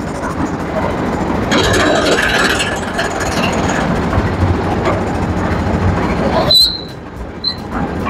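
Engine of a lift concrete mixer running while its lift hoists the loading bucket up the mast and lowers it again. About six and a half seconds in, the machine noise drops away abruptly with a short high squeal, then picks up again near the end.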